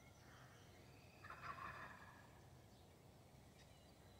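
Mostly near silence, with one faint, brief gobble from a wild turkey gobbler about a second in.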